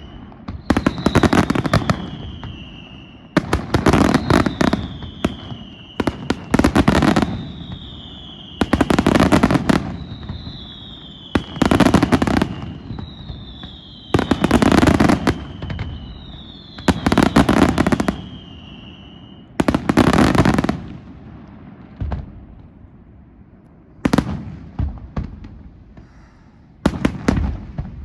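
Aerial fireworks going off in rhythmic salvos: about eight loud crackling volleys some two and a half seconds apart, most trailed by a falling whistle. Over the last part the salvos give way to scattered single bangs.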